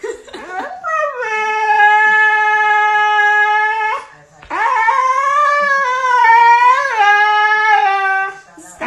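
Husky howling: two long howls, the first sliding up and then held level for about three seconds, the second wavering up and down for nearly four seconds.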